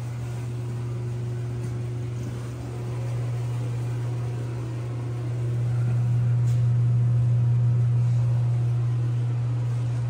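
Blizzard wind buffeting the microphone: a steady low rumble that swells louder about six seconds in.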